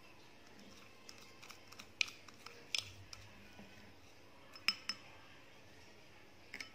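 A small spoon clinking and scraping against a glass bowl as dry seasoning is stirred together for a dipping sauce: a few sharp, scattered clicks.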